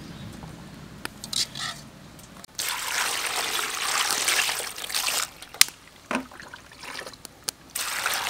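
Water poured from above onto chicken innards and egg yolks in a woven bamboo basket standing in a metal basin, splashing over them and draining through: one pour of about two and a half seconds, then a second, shorter pour near the end. A few light knocks before it, as the food is tipped from a wire strainer into the basket.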